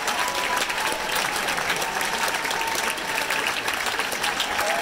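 Theatre audience applauding, a dense steady clapping, with long high held calls from the crowd ringing above it.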